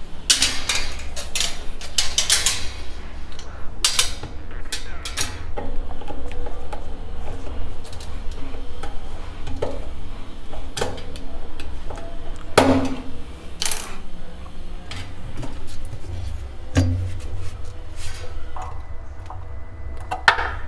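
Stainless-steel wire kitchen basket and its metal drawer channels clinking and knocking as they are handled and set into the cabinet: a scatter of sharp metallic taps, thickest in the first few seconds, over a low steady hum.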